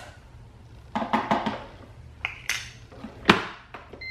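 Light clicks and knocks of things being handled on a kitchen counter, with one sharper knock a little after three seconds in. Right at the end an electronic beep from the drip coffee maker starts.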